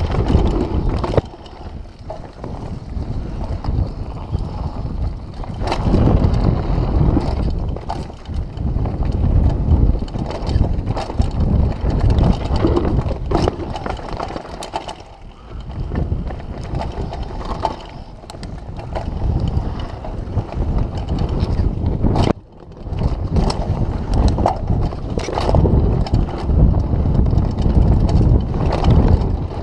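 Downhill mountain bike running fast over a dirt trail: wind buffeting the camera's microphone and tyres rumbling, with frequent knocks and clatters from the bike as it hits bumps.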